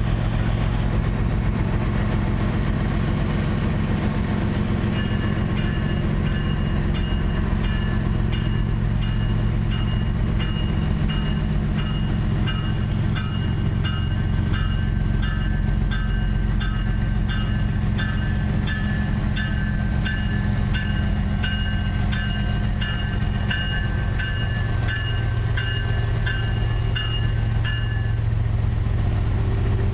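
Two CN GE diesel freight locomotives rumbling steadily. A bell rings over them about twice a second, starting about five seconds in and stopping near the end.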